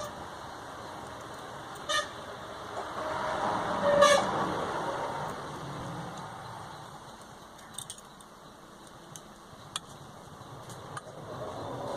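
Small two-wheeler electric horn sounding two short toots, a brief blip and then a louder beep about two seconds later, as it is tested while its tone is being set.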